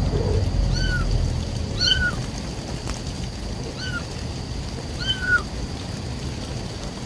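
Kitten mewing: four short, high-pitched calls about a second or two apart, over a steady hiss of rain. A brief lower call comes right at the start.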